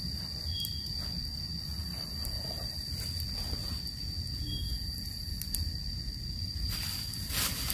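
Insects giving one steady high-pitched whine over a low rumble, with faint clicks of things being handled. About seven seconds in comes a short rustle of a plastic food wrapper being opened.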